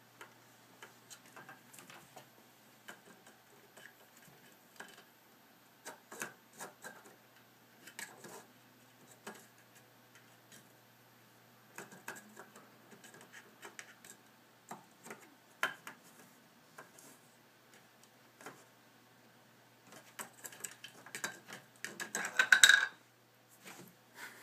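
A cat's paws tapping, scraping and patting on a desk and a paper sheet in scattered light clicks. Near the end comes a much louder run of clattering as the desk's plastic cable-grommet cover is knocked loose.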